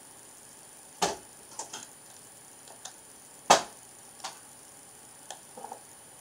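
Plastic Lego bricks clicking and clacking as pieces are picked out and handled: a scatter of sharp, irregular clicks, the loudest about three and a half seconds in.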